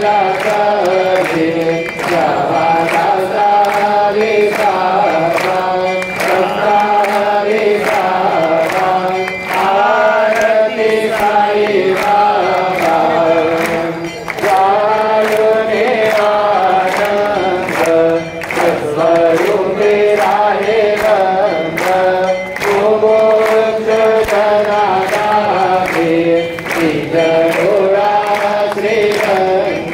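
Devotional group chanting sung to a melody over a steady drone, with a regular percussive beat.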